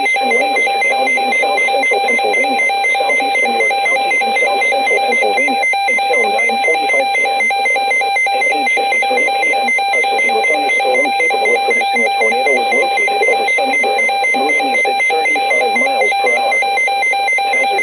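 Emergency alert attention tone: a loud, steady electronic alarm tone held without a break, with a faint murmur of voices beneath it.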